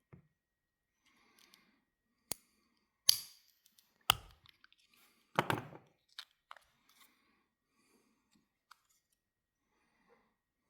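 A knife blade prying the plastic scale off a Swiss Army knife: small clicks and scrapes, a sharp snap about three seconds in, a knock a second later, and a short clatter of small parts around the middle.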